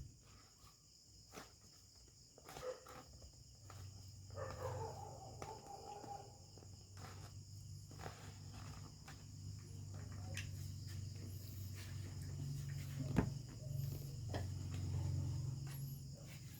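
Faint crickets chirping steadily, with scattered small clicks and knocks from handling loudspeaker parts. A low hum rises in from about four seconds in.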